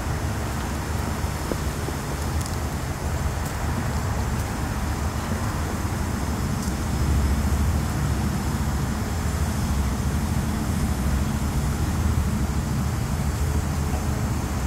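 Crane engine running steadily, a low rumble that grows a little louder about seven seconds in.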